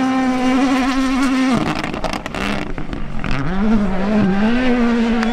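Ford Puma Rally1 rally car engine, a turbocharged 1.6-litre four-cylinder, held at high revs, then cut off abruptly about a second and a half in. A couple of seconds of rough crackling follow, then the revs climb again, dip once and hold steady near the end.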